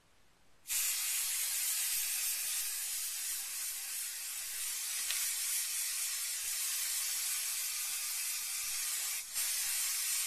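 Aerosol can of Crafter's Companion Stick + Spray adhesive hissing steadily as a thin layer is sprayed over a cutting mat, starting about a second in, with a brief break near the end before spraying resumes.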